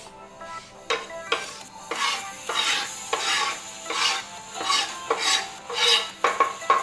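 Knife blade scraping across a wooden cutting board in repeated strokes, about two a second, sweeping off chopped pepper and tomato bits.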